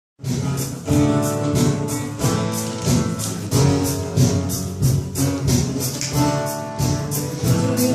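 Instrumental intro on strummed acoustic guitar: chords strummed in an even rhythm of about four strokes a second, changing chord every second or so.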